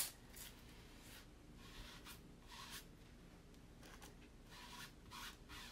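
Faint rubbing and rustling of a plastic stencil transfer sheet as hands press and smooth it flat on a sign board, with a few brief soft scrapes.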